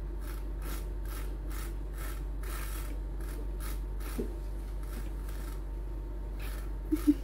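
Hard sucking on a drinking straw: a run of short, noisy draws, about two or three a second.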